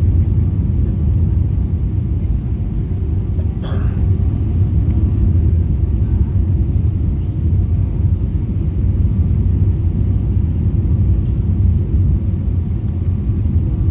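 Steady low rumble heard inside an airliner's cabin, the noise of the engines and the air rushing past, with a single brief sharp click about four seconds in.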